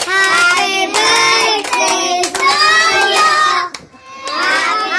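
A group of children singing together in long held notes, with hands clapping along. The singing breaks off briefly near the end, then starts again.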